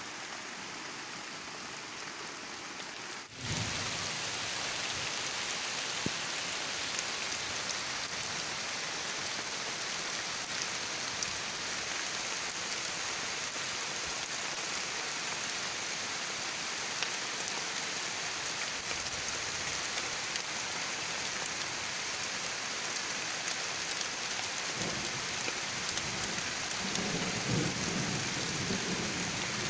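Heavy rain falling steadily, stepping up louder about three seconds in. A low rumble of thunder swells near the end.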